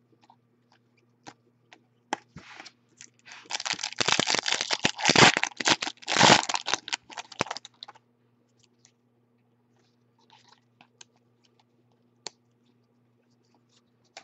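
Soft clicks of trading cards being flicked through by hand. From about three and a half to eight seconds in comes a loud burst of crinkling and tearing, a card pack's wrapper being torn open and handled.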